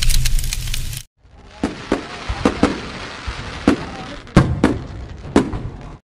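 End-card sound effect: a loud, low rushing noise with crackle that cuts off abruptly about a second in, then a string of sharp, irregular cracks and pops over a steady hiss.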